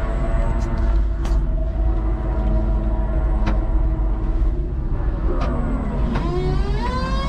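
A 5-ton electric forklift truck heard from its cab: a steady electric motor whine over a low rumble, with a few sharp clicks, the whine climbing in pitch over the last two seconds as the motor speeds up.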